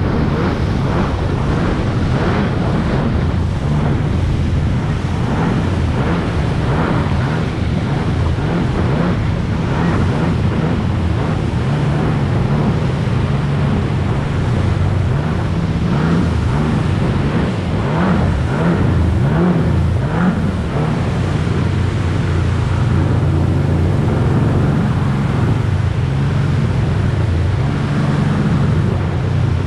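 Jet ski engine running under way, its pitch rising and falling with the throttle, over the rush of water and spray off the hull.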